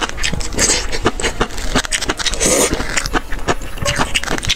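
Close-up eating sounds of a person slurping and chewing noodles in spicy broth: a rapid run of wet mouth clicks and hissing slurps.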